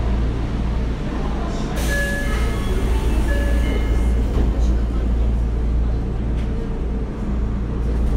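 Running sound inside a Tokyo Metro Marunouchi Line 02 series subway car: a steady rumble of wheels and running gear. About two seconds in there is a short crack, followed by a few brief high tones.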